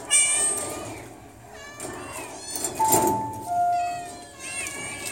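Caged cats meowing loudly and repeatedly, starting with a long, high meow and followed by several more. About three seconds in, a steady two-note tone sounds: a higher note, then a lower one.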